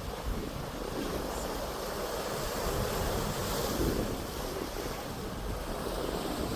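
Sea waves washing onto the shore, swelling louder about halfway through, with wind buffeting the microphone.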